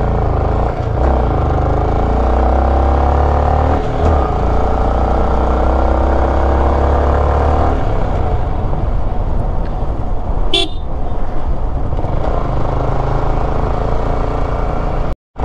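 Yamaha sport motorcycle's engine running steadily under way, its pitch drifting over the first several seconds. A short horn beep comes about ten and a half seconds in, and the sound drops out for a moment near the end.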